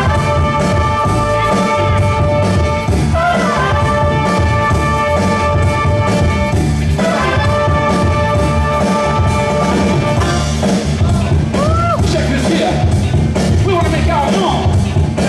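Music for breaking from the DJ: a heavy, steady bass beat under long held chord notes, which give way about ten seconds in to shorter sliding pitched sounds.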